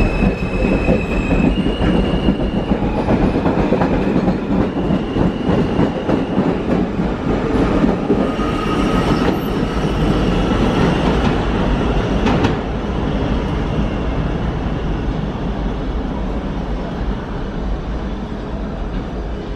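R160A New York City subway train running through the station: a steady rumble of wheels on rail with a few clicks, and high wheel squeals at the start and again about halfway through. The rumble eases off a little near the end.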